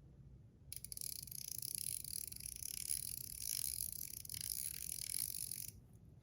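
Top C metal fidget clicking rapidly and continuously as it is worked, its spring-loaded balls snapping over the plate. The clicking starts about a second in and stops shortly before the end.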